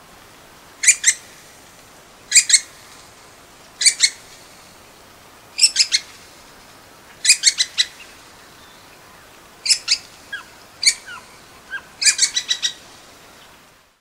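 Little woodpecker calling: groups of two to five short, sharp, high notes repeated about every second and a half. Fainter, lower chirps slip in between the groups near the end.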